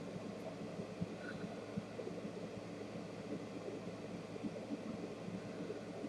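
Steady low room hum with a light hiss, and a few faint soft knocks.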